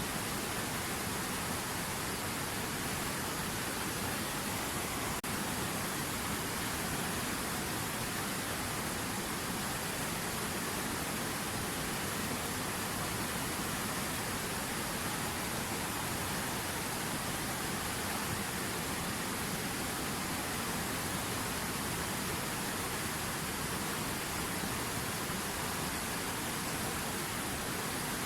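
River water running, a steady even rush with no change in level, broken only by a momentary dip about five seconds in.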